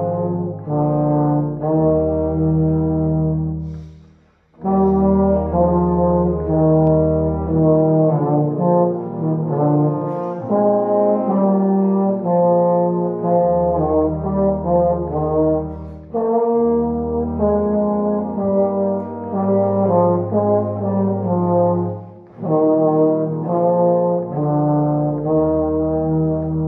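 Austrian tenor horn (Tenorhorn) with rotary valves, played solo in sustained, singing notes. The melody comes in phrases, with short breaks for breath about four seconds in and again near twenty-two seconds.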